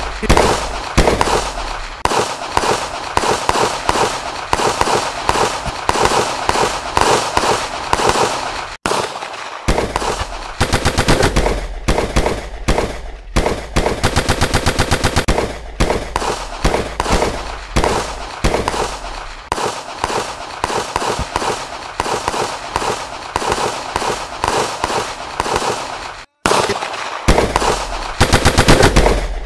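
Submachine-gun fire from several shooters at once: single shots and short bursts overlapping, with one long, even automatic burst about halfway through.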